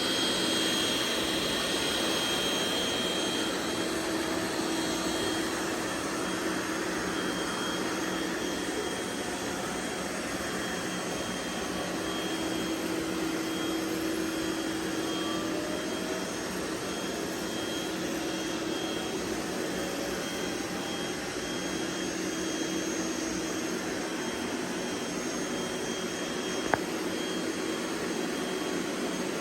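Several robot vacuum cleaners running together with a steady whir, their motor hums coming and going. One sharp click sounds near the end.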